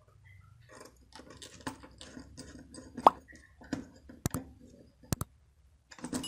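Small clicks, taps and scrapes of hands and a screwdriver working wires into the screw terminals of a dimmer circuit board, with a few sharp clicks in the second half.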